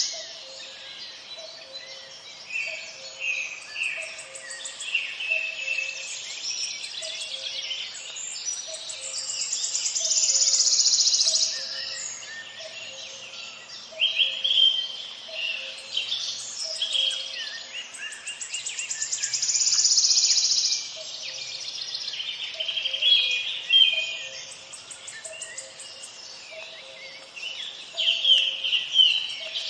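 A dense chorus of songbirds singing, many overlapping chirps and trills that swell and ebb, with a faint low pulse repeating about once a second underneath.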